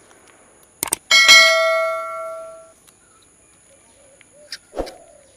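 A metal bowl struck once, giving a loud bright ring that dies away over about a second and a half, just after a couple of light clicks. A short knock comes near the end.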